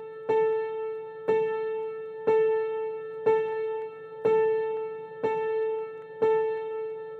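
Background music: a piano-like keyboard note struck about once a second, the same pitch each time, each one fading before the next.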